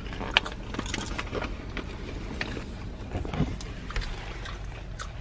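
Steady low hum inside a car, with scattered light crunches and rustles of popcorn being eaten and handled.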